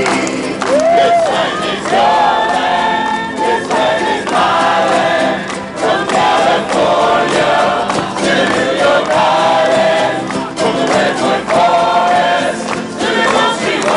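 Many voices singing a folk song together, led by a male singer with an acoustic guitar and accordion.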